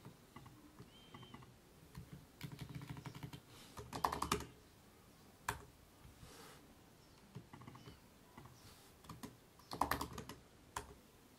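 Computer keyboard typing in short runs of quick keystrokes, with a few single clicks in between; the busiest runs come about three to four seconds in and again near ten seconds.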